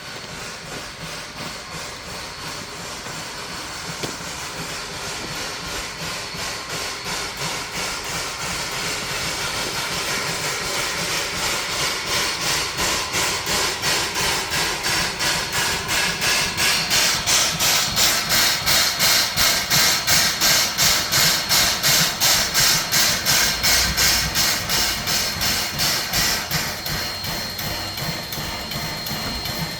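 Arcade & Attica Railroad's 1920 2-8-0 steam locomotive #18 working, its exhaust chuffing in an even rhythm that grows steadily louder to a peak about two-thirds of the way through, then eases a little. A thin steady high hiss joins the chuffs about halfway through.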